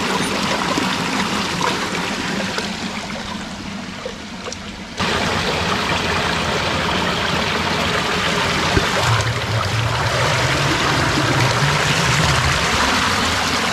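Steady rush of flowing stream water, which becomes suddenly louder about five seconds in.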